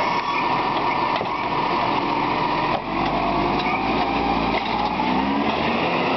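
Side-loader rubbish truck's engine and hydraulic lifting arm running as the arm lowers an emptied wheelie bin and folds back: a steady high-pitched mechanical whine whose pitch drifts slowly up and down, with one knock about three seconds in.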